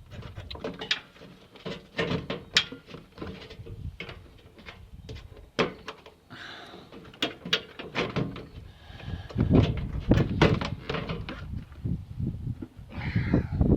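Hands and tools working on a car's front end: an uneven run of sharp clicks and knocks with scraping and creaking, as the bumper bar and headlight are worked loose. Louder knocks come about two and a half seconds in, around five and a half seconds, and in a cluster near ten seconds.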